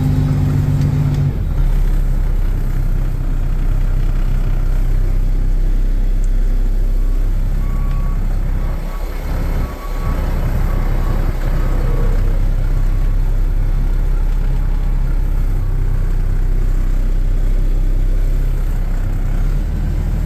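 Mack 11.9-litre inline-six diesel of a concrete truck running steadily, its pitch dropping about a second in, with a brief dip in level about halfway through.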